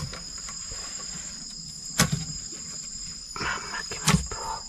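Steady night chorus of insects, two high-pitched trilling tones held throughout. Two sharp knocks, about two seconds in and again near four seconds, with a brief rustle just before the second.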